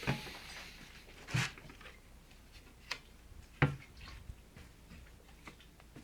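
A few irregular knocks and clicks, the loudest about three and a half seconds in, with no engine running.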